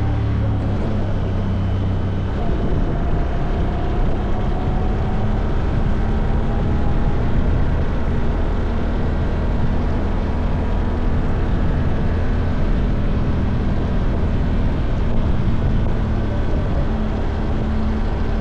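Side-by-side ATV engine running steadily while driving, with tyre noise from a gravel road under a wash of noise.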